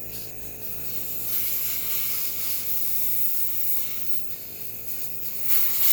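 Air hissing out of a tire's valve stem as the valve core is slowly unscrewed, letting the last of the pressure escape. The hiss swells about a second and a half in, eases off later, then gets louder again near the end.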